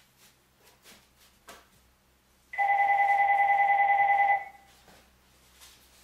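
A telephone ringing: one warbling two-tone electronic ring of about two seconds, starting about halfway in. Before it come faint clicks and rustles of a dog rummaging in kitchen trash.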